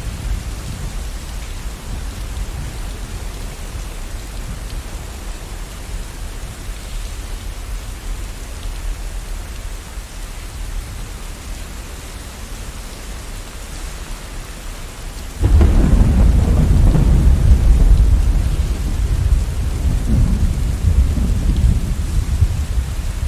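Steady rain with a low rumble of distant thunder; a loud thunderclap breaks out suddenly about two-thirds of the way through and rolls on, slowly easing.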